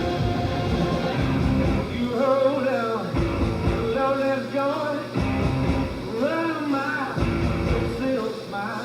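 Rock music soundtrack with a sung vocal over a steady beat.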